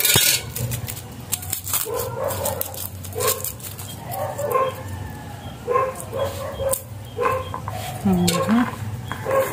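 A dog barking repeatedly in short, irregular barks, mixed with small clicks and taps of hands working at a plastic cutting board.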